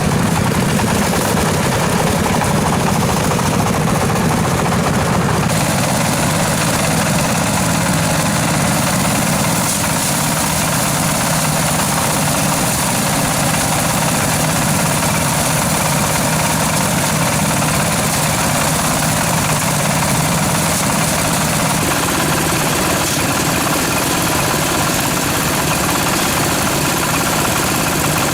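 An engine running steadily and loudly, with a constant low hum and a dense mechanical noise; the noise gets brighter about five seconds in.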